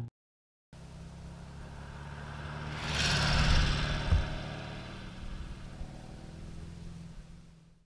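A trike's engine running as it drives past at speed: it grows louder, passes close, then fades as the vehicle pulls away down the road. A short sharp knock comes about four seconds in.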